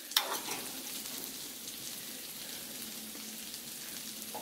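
Sauce boiling hard in a divided hot pot, a steady bubbling sizzle. There is one sharp utensil clack just after the start, as a boiled egg goes into the butter side.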